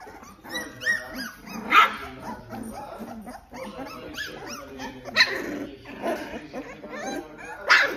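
A litter of three-week-old American Staffordshire terrier puppies yipping and whining over one another, with many short high calls. Three louder yelps stand out: about two seconds in, about five seconds in, and just before the end.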